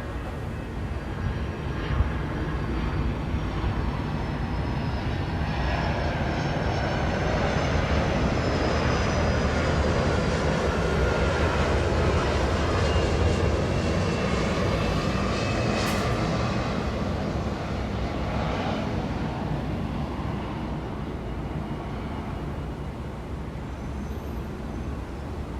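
An airplane passing overhead, its engine noise slowly building, peaking midway and fading away, with a faint falling whine, over a steady low city traffic rumble. A sharp click sounds about two seconds in and again about sixteen seconds in.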